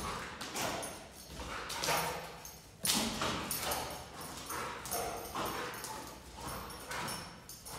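A pit bull's paws and claws scrabbling, skidding and landing on a concrete floor as it dashes and leaps after a flirt pole lure. The sound comes as a quick series of scuffs and thuds, the sharpest about three seconds in.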